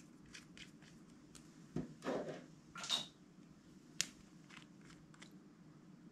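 Small plastic clicks and taps from handling little toy nail polish bottles and their screw caps and setting them down on the table. There is a louder knock and rattle about two seconds in and a sharp click at four seconds, over a faint steady low hum.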